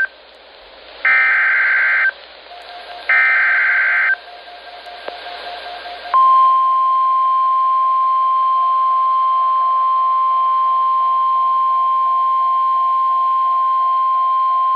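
NOAA Weather Radio Emergency Alert System activation heard over a radio's hiss: two harsh SAME digital header bursts, each about a second long and two seconds apart. After a pause comes the steady 1050 Hz weather radio alarm tone, held for about nine seconds. It signals that a severe thunderstorm watch bulletin follows.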